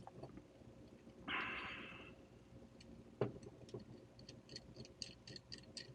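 Small metal hand-tool sounds at a gunsmithing bench: a short scrape about a second in, a sharp knock a little after three seconds, then a run of light ticks, roughly three to four a second.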